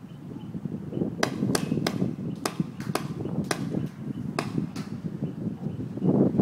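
Paintball markers firing: about ten sharp pops in quick, uneven succession between one and five seconds in, over a low rumble of wind on the microphone.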